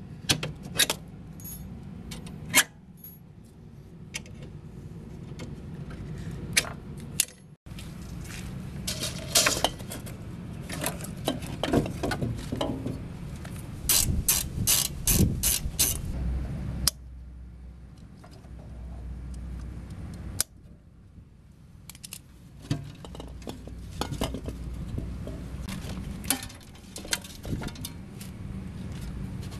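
Clicks, scrapes and clatter of pliers and metal and plastic parts being handled while a refrigerator's compressor compartment is taken apart, with a quick run of sharp clicks about halfway through.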